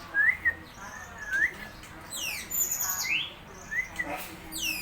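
A tame murai songbird singing: short rising whistled notes mixed with quick sweeping notes that fall from high to low, in a varied, broken phrase.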